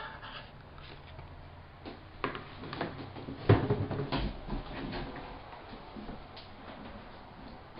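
Metal cluster mailbox being worked: irregular clicks, rattles and knocks of the key and the small sheet-metal door, the sharpest knock about three and a half seconds in, with envelopes handled.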